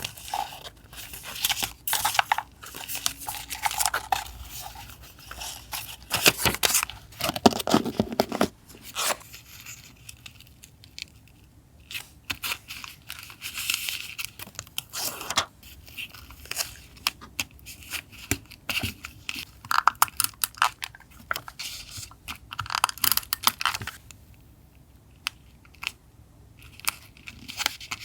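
Paper being handled for a collage: crinkling and tearing in irregular bursts of rustles and sharp clicks, with short lulls between.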